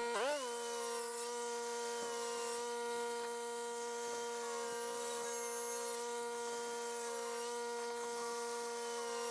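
Corded power saw motor spinning up with a brief swoop in pitch, then running at a steady whine. It is left running at constant speed between cuts so that its startup draw does not bog down the generator powering it.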